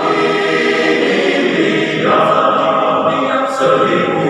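Men's choir singing in harmony, holding sustained chords, with a change of chord about two seconds in.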